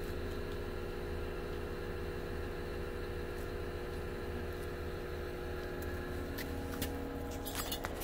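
Heavy-equipment diesel engine idling steadily, with a few light metallic clinks near the end.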